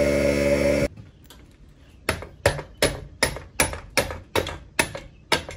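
Background music that cuts off about a second in, then a steady run of sharp metallic taps with a short ring, roughly three a second, from metal work on a pit bike's rear wheel.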